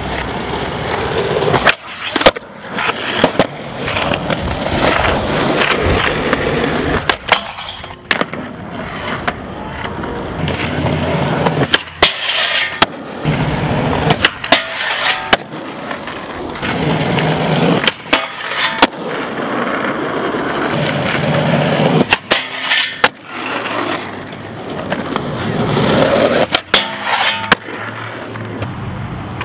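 Skateboard wheels rolling on concrete, with repeated sharp clacks from the tail popping and the board landing, and trucks grinding along a metal handrail.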